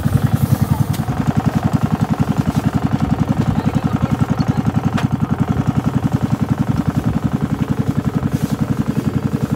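Outrigger boat engine running steadily close by, a fast, even thudding of about ten beats a second.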